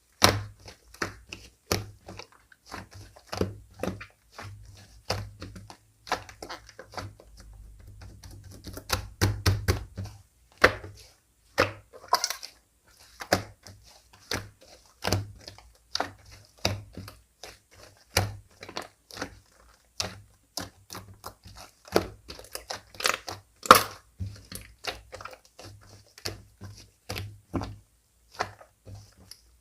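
Slime being squished, folded and pressed by hand, giving irregular sharp clicks and pops, a few each second, over soft thuds.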